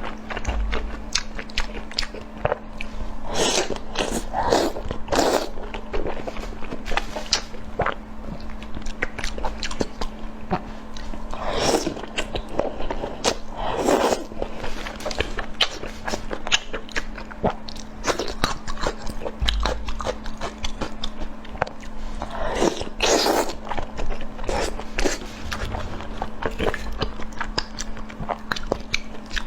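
A person biting and chewing food close to the microphone, with irregular crunches and wet mouth clicks.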